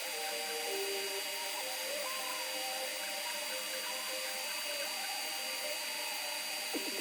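Creality Ender 3 V2 3D printer printing: its stepper motors whine in tones that keep stepping up and down in pitch as the print head moves, over a steady fan hiss with a constant high whine.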